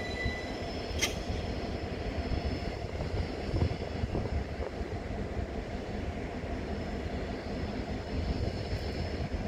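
CN freight train of double-stack container cars rolling by at a distance: a steady low rumble of wheels on rail, with faint thin wheel squeal near the start and again near the end. One sharp click about a second in.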